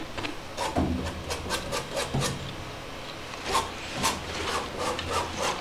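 A stiff oil-paint brush scraping and tapping against a stretched canvas in a quick, irregular series of short strokes, as when evergreen trees are laid in.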